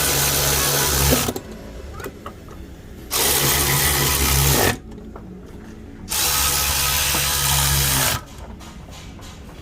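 A power tool run in three bursts of about one and a half to two seconds each, with short quieter pauses between.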